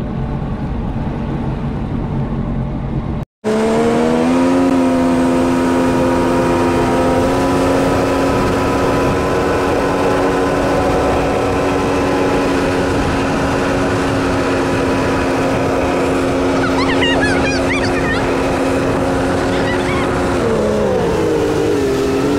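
Sea-Doo jet ski engine running, pitched low at first. After a brief break about three seconds in, it runs at a steady higher pitch at cruising speed over a constant rush of water and wind. Near the end the pitch drops as it slows.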